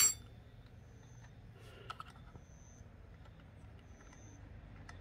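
A metal spanner gives a brief ringing clink at the very start as it is set down. Then come a few faint clicks from hands working the brush cutter's carburettor fuel valve, over a quiet background with a faint high chirp repeating about every second and a half.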